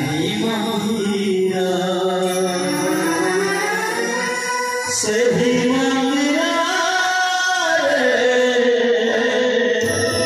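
Devotional bhajan sung with instrumental accompaniment, the voice holding long notes that glide slowly up and down.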